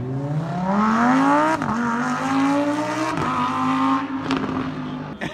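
A car's engine accelerating hard away, its revs climbing, dropping briefly at two upshifts about a second and a half and three seconds in, then holding steady as it pulls off.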